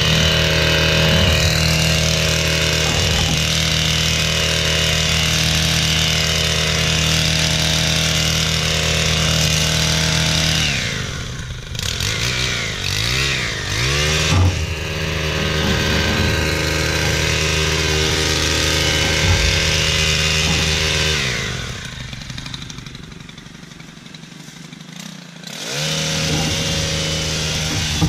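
Stihl hedge trimmer's small engine running at high throttle while cutting hedge. It eases off with the pitch sweeping down and up about a third of the way through, drops to a low idle for a few seconds near the end, then revs back up.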